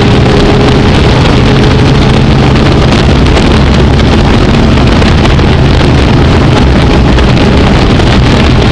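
Dirt-track modified race car's V8 engine running hard at racing speed, heard from inside the cockpit, loud and steady, with wind noise on the microphone.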